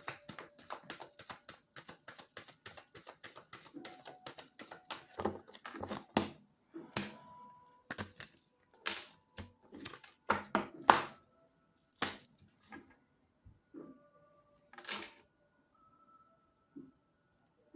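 Tarot cards being shuffled by hand: a rapid patter of card clicks for the first several seconds, then slower, separate slaps and snaps as the deck is cut and handled.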